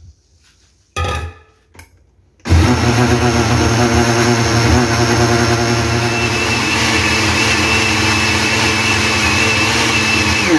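Oster countertop blender starting abruptly and running steadily at speed, liquefying ripe plantains with milk, with a thin high whine joining partway through. It is switched off near the end and spins down.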